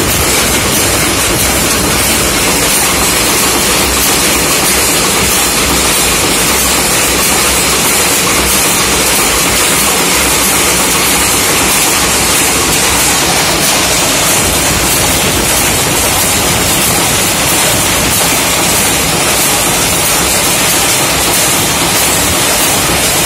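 Several screw-making machines running at once, a loud, steady, dense metallic clatter with a hiss.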